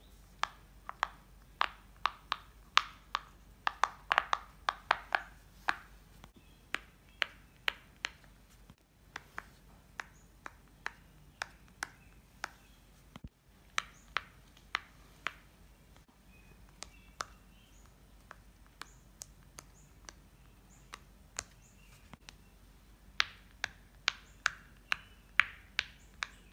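Bubbles of silicone pop-it fidget toys being pushed in one after another by fingers, each giving a sharp little pop, a few a second. The pops are softer and sparser through the middle and come quickly and more loudly again near the end.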